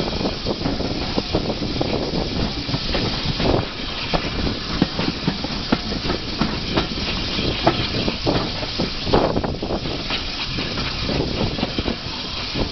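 Passenger carriage wheels clacking and knocking irregularly as a steam-hauled train rolls over pointwork, with a few sharper knocks in the middle, over a steady rushing hiss.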